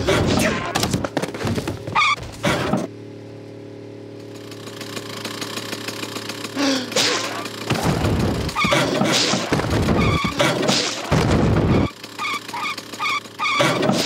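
Cartoon sound effects: a car engine running steadily under a string of thuds and sudden loud noises, with a quick run of short beeps near the end.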